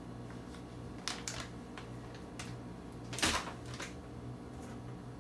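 Handling noise: a few light clicks and knocks, then a short plastic rustle about three seconds in as a bag of MSG is set down on a counter, over a low steady hum.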